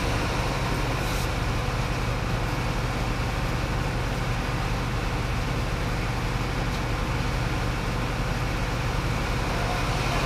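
Fire engine's engine running steadily, a constant low hum that does not change.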